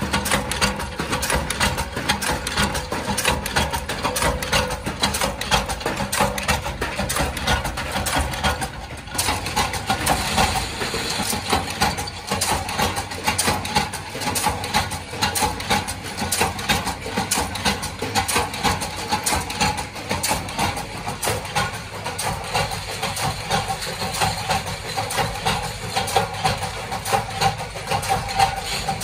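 Belt-driven mechanical power presses running steadily while stamping and drawing sheet-metal lamp-holder screw shells: a fast, continuous clatter of press strokes over a steady machine hum. There is a brief dip about nine seconds in.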